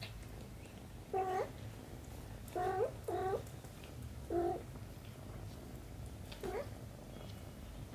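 A kitten mewing in short high calls, five in all, two of them close together about three seconds in and the last one fainter, while the mother cat grooms it.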